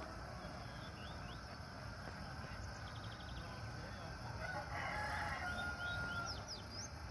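A rooster crowing once, about five seconds in, with small birds chirping over a steady low rumble.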